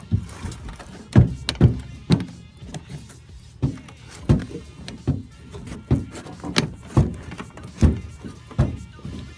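Irregular thuds and knocks, roughly one every half second to a second, from work tearing up the deck of an old bass boat.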